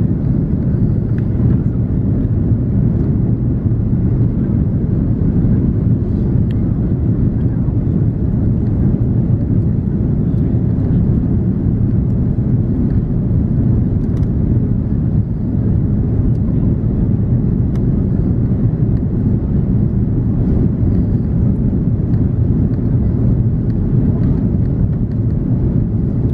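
Steady low rumble inside the cabin of an Airbus A340-300 on approach: its four CFM56 turbofans and the airflow past the fuselage.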